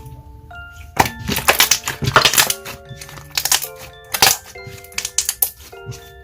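Clear slime being squeezed and worked by hand, crackling and popping in several clusters of quick clicks, over light background music of chiming mallet-like notes.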